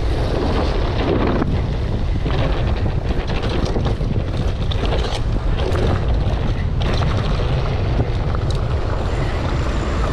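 Wind buffeting the microphone on a mountain bike descending a downhill trail, with scattered knocks and rattles from the bike over rough ground.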